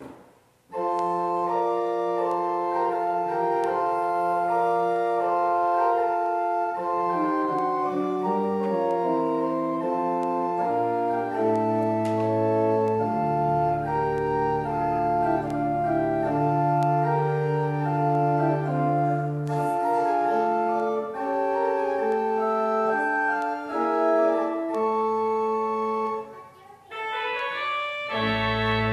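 Church pipe organ playing a slow postlude of sustained, changing chords. It starts about a second in, breaks briefly near the end, then comes back in with a deep bass chord.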